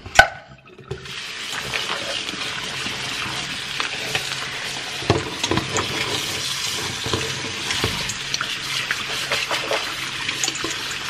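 Kitchen tap running into a stainless steel sink onto canned chickpeas in a metal colander. Fingers stir the chickpeas, adding small clicks and rattles over the steady rush of water. There is a sharp click just before the water starts, about a second in.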